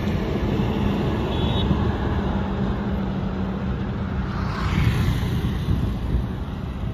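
KTM RC sport motorcycle's single-cylinder engine running steadily at low revs as the bike rolls slowly, its hum easing off about four and a half seconds in.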